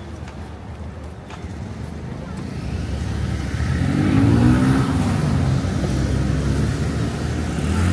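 A car engine running close by and revving, growing louder from about three seconds in and staying loud, over a low background of street noise.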